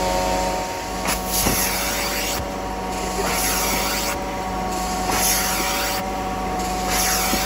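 Carpet extractor working a stain: a steady motor whine, with a hiss of spray and suction that comes and goes about every two seconds as the wand is worked over the carpet.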